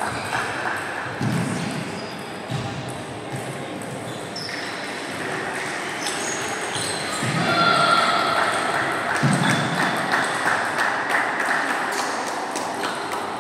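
Table tennis balls clicking on the table and off paddles during rallies, with echo from a large sports hall. Voices come in over the clicks in the second half.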